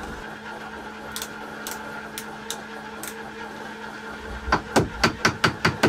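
A steady low hum with a few light clicks, then from about four and a half seconds in a quick, even run of sharp knocks, about five a second, as a hand tool taps at the boat's seacock fitting.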